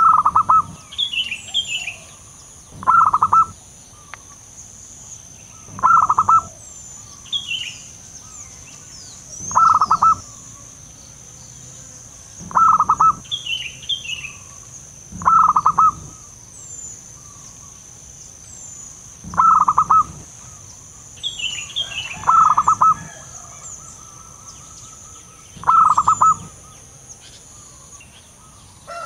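Zebra dove cooing: short trilled calls of a few quick notes, repeated about every three seconds. Smaller birds chirp now and then, and a steady high-pitched tone runs underneath.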